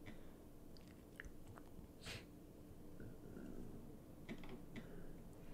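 Near silence: quiet room tone with a faint steady hum and a few scattered soft clicks.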